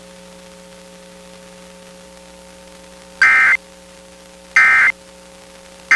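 Emergency Alert System end-of-message data tones heard off the radio: three short identical bursts of high warbling digital tones about 1.3 s apart, starting about three seconds in. They close the required monthly test. Before them, a faint steady hum with static from the radio reception.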